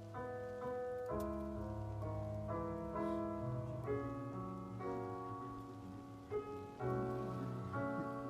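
Background music: soft piano chords, a new chord every second or so.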